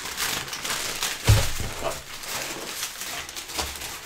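Paper bag and foil wrapping rustling and crinkling as a takeaway parcel is unwrapped by hand, with a dull thump about a second in.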